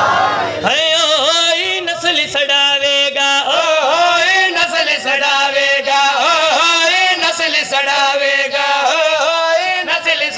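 A man's voice chanting a tilawat-style recitation into a microphone, in long, ornamented melodic phrases held without a break.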